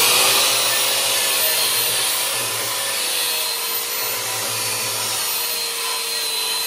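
Electric angle grinder with a wire wheel running against a stick-welded root pass on steel plate, brushing off the slag. It gives a steady whine over a harsh hiss.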